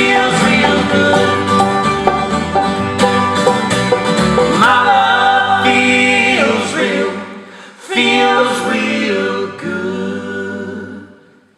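Live acoustic folk band playing the closing bars of a song. The music thins out about 7 s in, then a final chord is struck about 8 s in and rings out, fading away near the end.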